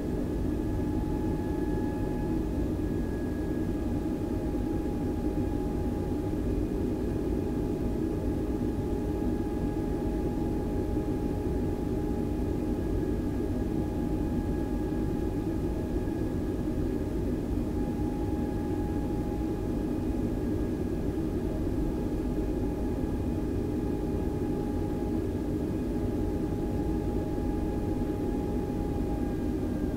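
Airbus A320 cabin noise: jet engines running steadily, a constant whine over a low rumble.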